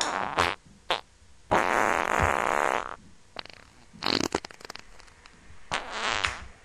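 A string of loud fart noises, the longest lasting about a second and a half, with sharp clicks of a lighter being struck about four seconds in.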